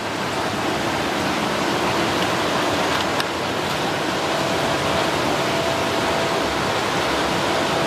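Tap water running hard into a sink: a steady rushing that starts just after the beginning, with a single light knock about three seconds in.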